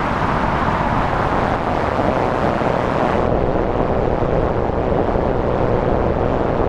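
SoundHack Spectraphon synthesizer module in Noise mode: a pair of sine waves smeared by wide noise sidebands into a steady, dense rushing noise centred in the mids. About three seconds in, the highest part of the noise is cut back.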